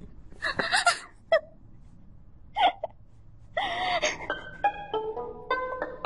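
Short vocal sounds in three brief bursts with wavering pitch, then, from a little past halfway, music of held notes stepping up and down in pitch.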